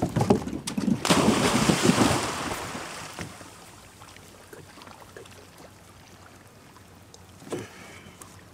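Dog in a flotation vest splashing hard into lake water: heavy splashing and spray over the first two to three seconds, then fading to quiet water noise as the ripples settle.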